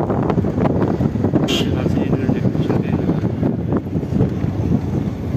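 Wind buffeting the microphone over the road and engine noise of a moving car, a dense, steady rumble.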